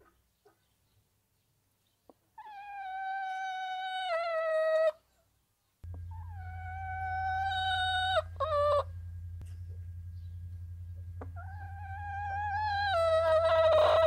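An animal gives three long, drawn-out pitched calls, each lasting a couple of seconds and dropping in pitch near its end. A low steady hum comes in after the first call.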